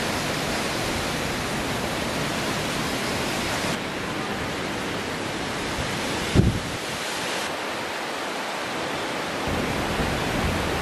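Heavy tropical rain falling steadily on rainforest, a dense even hiss that shifts slightly in tone twice as the shots change. One short, dull thump comes a little past the middle.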